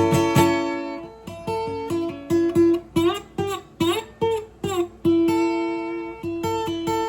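Solo acoustic guitar playing: strummed chords at first, then single plucked notes, some of them bent in pitch.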